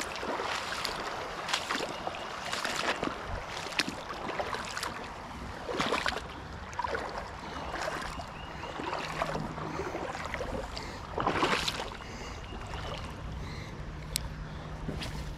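Legs wading through shallow creek water, sloshing in surges roughly once a second. A low steady hum joins in over the last few seconds, with a few sharp ticks near the end.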